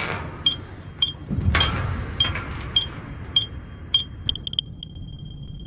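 High-pitched alignment tone beeping a little under twice a second, quickening about four seconds in into rapid beeps and then a brief steady tone as the point-to-point radio dish is aimed for stronger signal. A loud rush of wind on the microphone about a second and a half in, over a low wind rumble.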